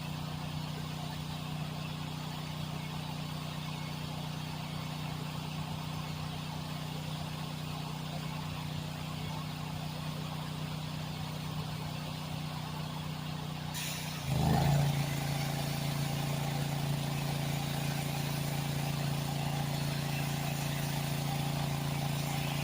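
An engine running steadily at a constant pitch. About fourteen seconds in the sound changes abruptly and grows louder, with a slightly lower, fuller hum.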